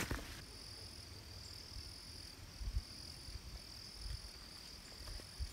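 Insects trilling in a steady high-pitched chorus that pulses with short breaks, with a few dull low thumps, the loudest about two and a half seconds in.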